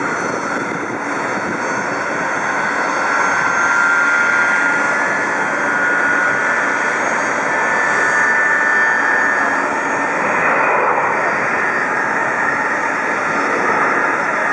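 Jet airliner engines running at taxi power: a steady loud rush with a faint high whine that drifts slightly in pitch.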